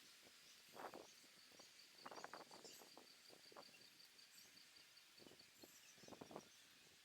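Faint outdoor ambience in which a bird or insect gives a rapid, even train of high chirps for about four seconds, with a few soft short noises.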